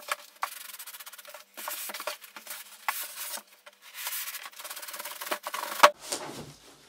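Cardboard box and the wrapped 32-inch LED TV scraping and rustling against each other as the set is worked up out of its box. A few sharp knocks come through, the loudest just before six seconds in.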